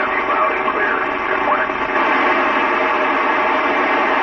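Hiss of an FM amateur radio receiver on the ISS 145.800 MHz downlink, with a weak voice breaking up through the noise for the first second and a half, then steady static.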